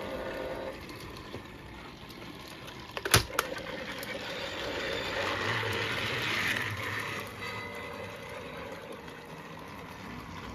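Small battery-powered toy motor whirring in a plastic toy playset, with one sharp click about three seconds in.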